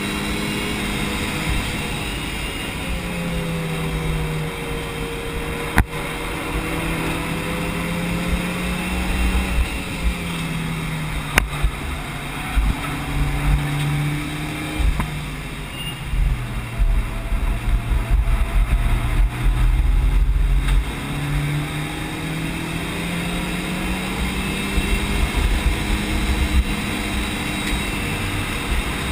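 Mitsubishi Lancer Evo VI Tommi Mäkinen's mechanically stock turbocharged 2.0-litre four-cylinder engine, heard from inside the cabin on track. The engine note rises in pitch under acceleration and drops away when the driver lifts, over and over, with a heavy low rumble strongest midway through.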